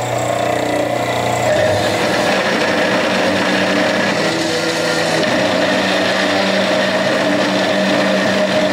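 Cold saw's electric motor running while its toothed steel blade is fed down through steel stock clamped in the vise, making a 45-degree miter cut; the hum changes tone about a second and a half in as the blade works into the steel.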